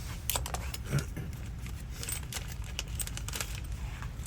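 Small metal lock parts clicking and rattling in quick, irregular ticks as door lock cylinders are rekeyed by hand, over a steady low hum.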